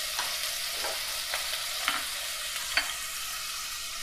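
Diced onion sizzling in hot olive oil in a stainless steel pot, freshly added and starting to fry. A few light knocks come from the wooden spoon as the onion is scraped in and stirred.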